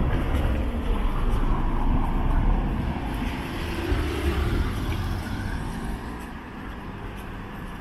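Street traffic: a road vehicle passing close by, its low rumble swelling to a peak a couple of seconds in and fading away over the last few seconds.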